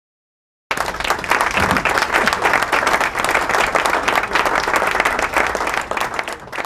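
Applause from a large crowd, dense clapping that starts abruptly about a second in.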